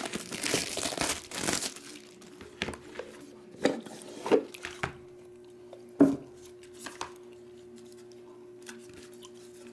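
Plastic shrink wrap being torn off a trading-card box and crinkled for about the first two seconds. Then come scattered light taps and knocks of the cardboard box and its sleeve being handled, with one sharper knock about six seconds in.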